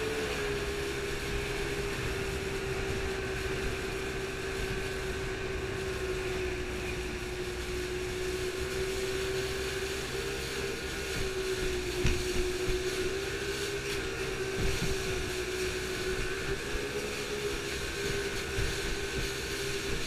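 Boat engine running steadily under way with a constant drone, over the rush of water along the hull. A few thumps come about halfway through.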